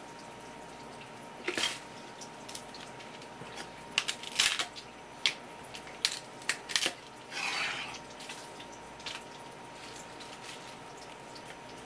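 A kitchen knife cutting and tapping on a wooden cutting board while wet squid is handled: a scattering of sharp knocks through the middle, followed near the end by a short wet slide or scrape.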